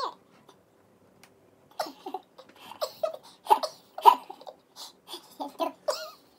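A man and a woman laughing in short, broken bursts, starting about two seconds in after a brief hush.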